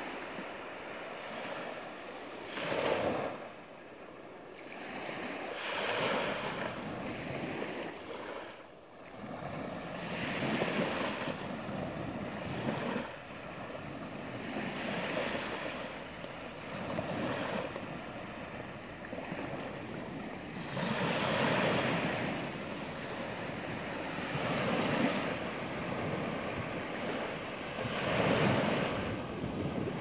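Small sea waves breaking in the shallows and washing up a sandy beach, the wash swelling and fading about every three to four seconds.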